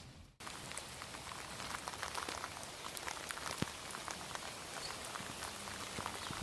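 Steady rain with many single drops ticking sharply close by. The rain comes in after a brief gap of under half a second at the very start.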